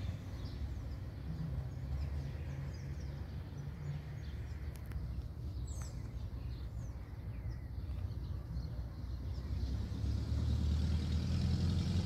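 A motor vehicle's engine running steadily, getting louder over the last two seconds, with a few faint short bird chirps over it.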